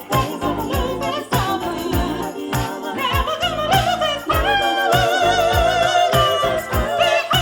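Gospel song playing, a voice singing a long, wavering held line over a steady beat with jingling percussion.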